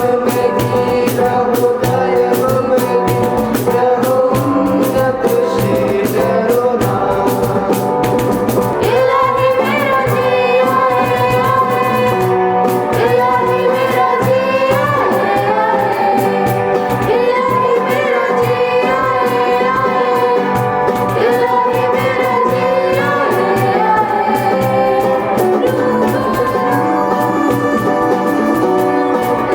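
A choir singing a song with instrumental accompaniment.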